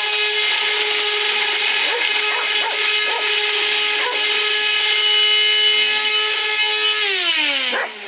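Upright vacuum cleaner motor running with a steady high whine, its fan impeller blades broken and out of balance. About seven seconds in it shuts off and the whine falls in pitch as the motor spins down. A dog barks briefly a few times over it.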